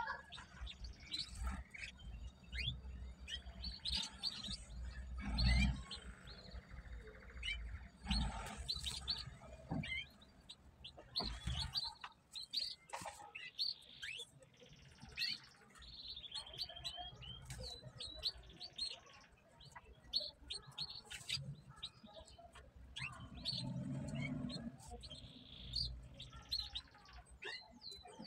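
Small birds chirping in many short, high, quick notes, with a few low rumbles in between.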